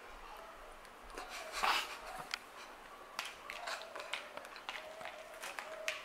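Close-up eating sounds of Kashi GoLean Crunch cereal: crunchy chewing and a metal spoon scooping through the cereal in a plastic bowl. There is a loud rustling crunch about two seconds in, then many small sharp clicks and scrapes.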